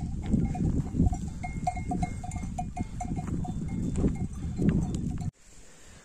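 Bells on a grazing flock of sheep and goats clinking, several light rings a second, over a low rumble. The sound cuts off sharply about five seconds in.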